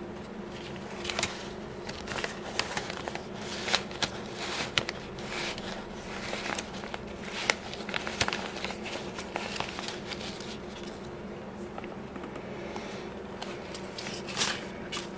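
Paper banknotes being handled, with irregular rustling and crinkling and sharp little snaps, busiest in the first half and again briefly near the end. A steady low hum runs underneath.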